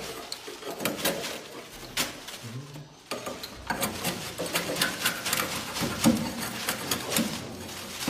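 Swiftlets chirping and clicking in a swiftlet nesting house: a busy run of short, sharp clicks and twitters.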